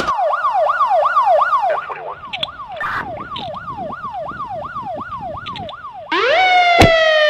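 Siren in a fast yelp, wailing up and down about three times a second, laid over handcuffing footage as a sound effect. About six seconds in it gives way to a long, slowly falling tone, with a sharp click shortly after.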